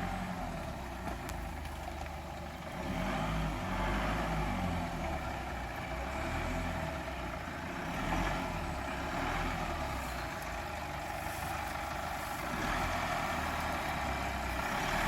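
Off-road 4x4 engine running steadily at low revs, a little louder from about three seconds in.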